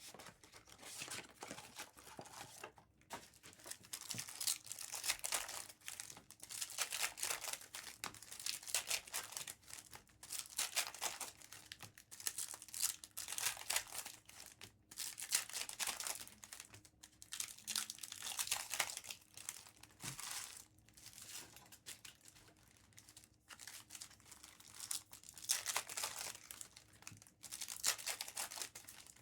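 Topps Chrome foil card-pack wrappers being torn open by hand and crinkling, in repeated rustling bursts every second or two.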